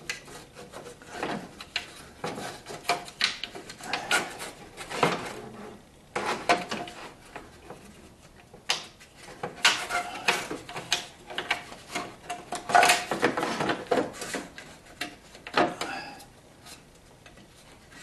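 Car front grille vent and its bracket being pushed and worked into place by hand, giving irregular rubbing, scraping and clicking, with a quieter stretch partway through.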